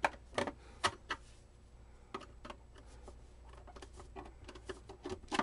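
A screwdriver working the screws in an old RCA 66X1 tube radio's cabinet: irregular small clicks and taps of metal on the screws and case. Several come close together in the first second, and a louder knock comes at the very end.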